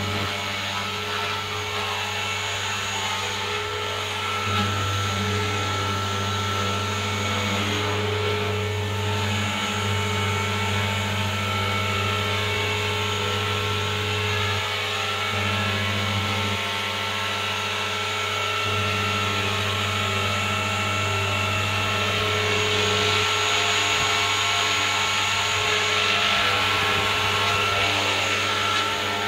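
Electric 450-size RC helicopter (Forza 450, 6-cell power) hovering: a steady whine from its motor and spinning rotor, a little louder for a few seconds near the end as it comes low and close.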